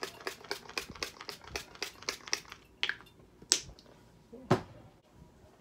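Rapid light clicks and taps, about five a second, then a few louder single knocks: plastic makeup containers being handled, including a liquid foundation bottle and a sponge.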